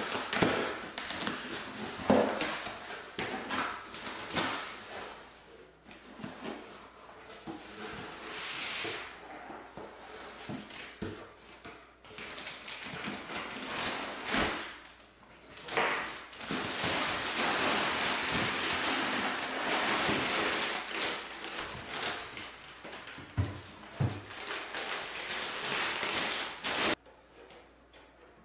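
Packaging being handled during an unboxing: rustling and scraping of cardboard and wrapping, with scattered knocks and thumps. It stops abruptly near the end.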